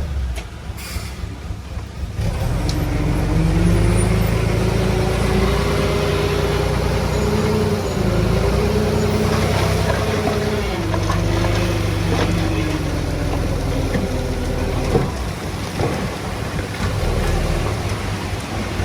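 Heavy diesel engine of earthmoving machinery picking up speed about two seconds in and running hard under load, its pitch wavering; a single sharp knock near the end.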